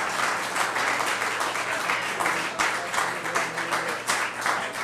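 Audience applauding: a roomful of people clapping steadily, easing off slightly near the end.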